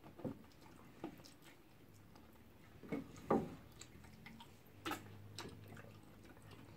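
Mukbang eating sounds: scattered lip smacks and mouth clicks, about six in all, from people chewing fish and poundo eaten by hand.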